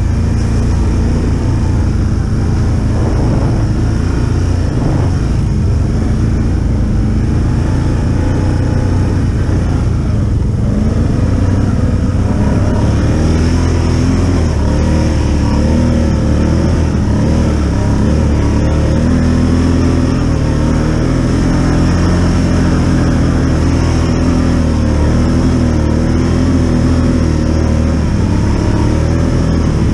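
Utility ATV engine running as the quad is ridden along a trail, its pitch wavering up and down with the throttle throughout.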